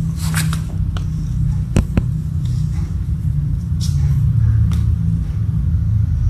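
Kittens scuffling on a flattened piece of cardboard on a tiled floor: a few sharp taps and scratches, the loudest two close together about two seconds in, over a steady low rumble.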